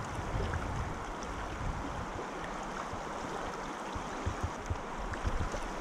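Steady rush of flowing river water, with a few soft low thumps in the second half.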